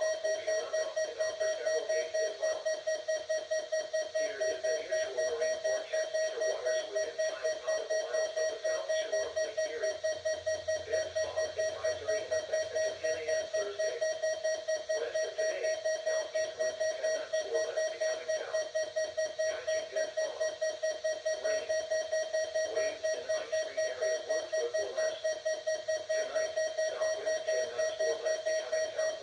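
Midland WR-100 weather alert radio sounding its alarm: a single-pitched beep repeating rapidly and evenly without a break.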